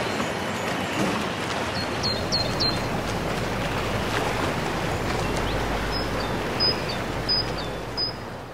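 Waves washing against a rocky shore: a steady rush of water, with a few short high chirps in two groups, fading out near the end.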